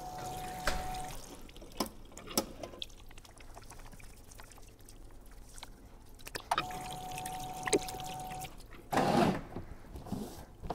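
Hand washing at a small wall-mounted wash basin. The tap runs twice, each time for a second or two with a steady whistle over the water, and a few clicks come from the lever dispenser in between. Near the end there is a loud rustle as a paper towel is pulled from the wall dispenser.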